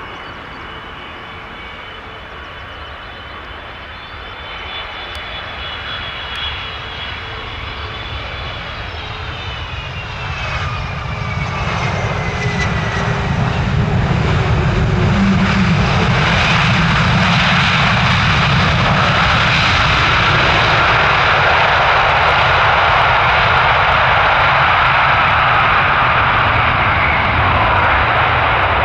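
Jet airliner's engines: a high whine that glides down in pitch as the aircraft passes, then a loud, steady roar that builds over a few seconds and starts to fade at the very end.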